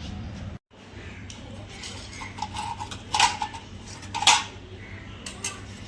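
A steady low hum stops suddenly about half a second in. It is followed by scattered hard, ringing clinks of small parts or tools being handled, two louder than the rest about three and four seconds in.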